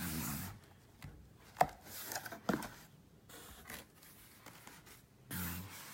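Cardboard helmet box being handled and opened by hand: cardboard rubbing and scraping, with a few sharp clicks and knocks.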